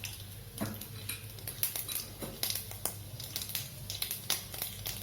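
Mustard seeds and urad dal in hot oil in a kadai, with irregular sharp pops and crackles as the seeds splutter.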